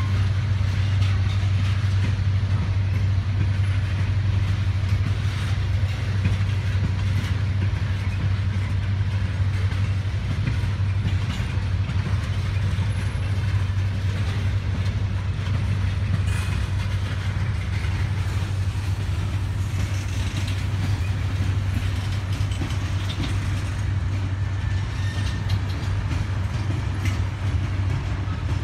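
Slow-moving freight train passing close by: the steady low rumble of CSX EMD diesel locomotives' prime movers, with scattered clicks and a few brief squeaks from the wheels of the covered hoppers and tank car rolling past.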